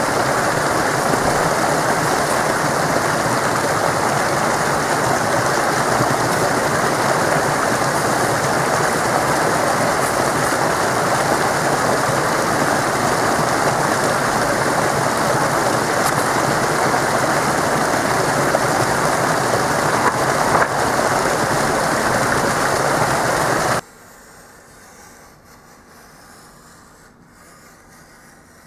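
Steady rushing water noise, an even hiss, that cuts off suddenly near the end, leaving faint room tone.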